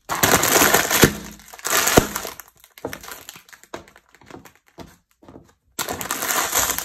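A plastic bag of crunchy Bake Rolls bread snacks being crushed under a high-heeled shoe. Loud crinkling and crunching for about two seconds, with two sharp knocks about a second apart. Then quieter scattered crackles, and another loud crunch near the end.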